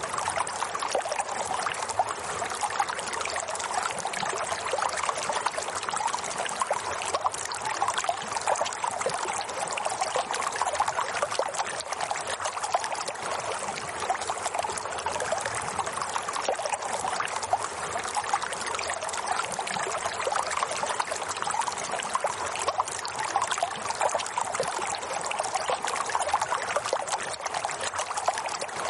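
Running water trickling and splashing steadily, like a small stream flowing over stones, with no pauses or changes.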